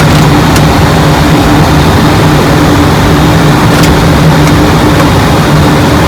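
Airliner cockpit noise in flight: a loud, steady rush of air with a constant low hum underneath.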